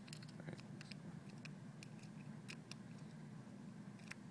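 Faint, scattered small ticks and scrapes of a screwdriver working a screw into a plastic electric can opener housing while the parts are handled, over a steady low hum.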